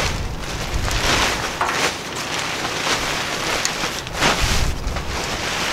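Nylon fabric of a deflated inflatable lounge chair rustling and swishing in irregular bursts as it is folded and rolled by hand, with wind buffeting the microphone in a low rumble about four seconds in.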